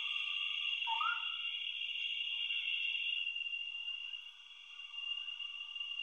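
Nature ambience of a steady, high-pitched insect chorus, joined by a short rising whistled call about a second in.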